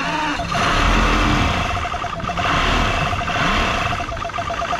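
Mercury boat engine running steadily just after being restarted on a makeshift replacement fuel line, with fuel still bleeding through; it gets a little louder about half a second in.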